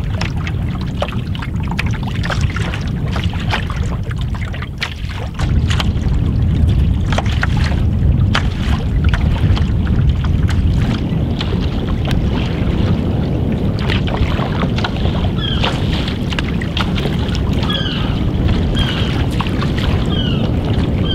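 Wind buffeting the microphone while small, close-set wind waves slap against the hull of a wooden canoe being paddled across choppy water. The wind gets louder about five seconds in, and in the second half a short, high, falling chirp repeats about once a second.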